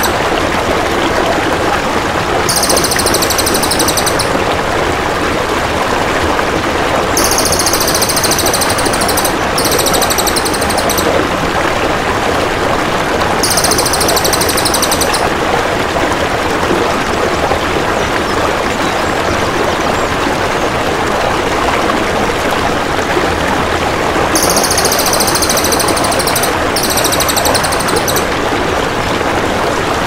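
Cililin (crested jay) calls: very high, rapid buzzing trills in bursts of one to two seconds, six of them with a long pause in the middle. They sound over a steady rush of flowing water.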